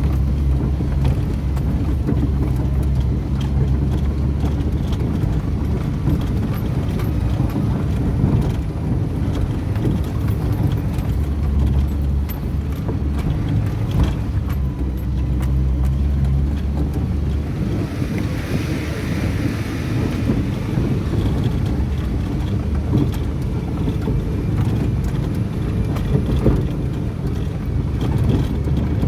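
Engine running steadily with a low drone. The low drone eases about two-thirds of the way through, when a brief hiss rises over it.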